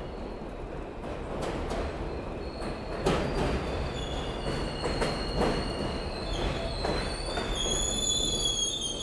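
R160A-1 subway train running into an elevated station, its wheels rumbling and clacking in pairs over the rail joints. From about four seconds in, high steady squealing tones rise over the rumble as the train slows.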